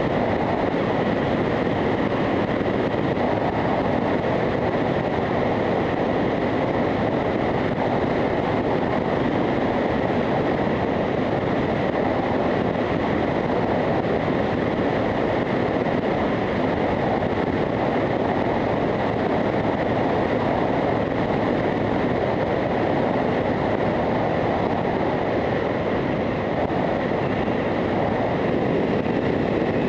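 Steady wind rush on a helmet-mounted camera's microphone at road speed, with a Harley-Davidson Fat Boy's air-cooled V-twin engine running evenly beneath it while cruising.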